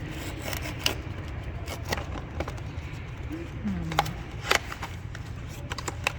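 Blind-box packaging being handled and opened by hand: scattered crinkles and sharp clicks, the loudest two coming close together past the middle, over a steady low hum.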